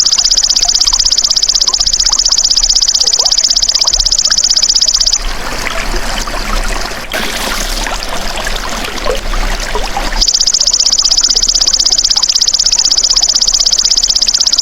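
Belalang emas ('golden grasshopper') singing: a high, rapidly pulsed buzzing trill in two long bouts, breaking off about five seconds in and starting again about ten seconds in. Under it runs a steady trickle of flowing water.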